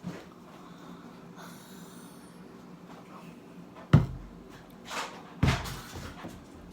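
Two thumps about a second and a half apart, the first one sharp and loud, with a softer noise between them.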